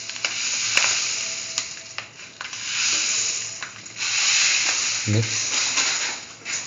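A pot of coconut milk, chayote and vermicelli boiling with a steady sizzling hiss while sugar is spooned in and stirred, with a few sharp clicks in the first two seconds. A brief voice sound about five seconds in.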